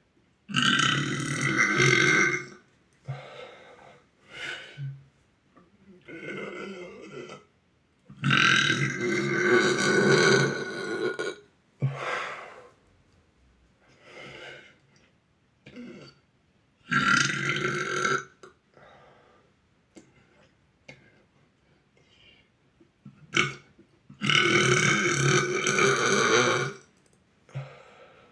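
A boy belching again and again: four long, loud burps of about two to three seconds each, with shorter, quieter sounds in between.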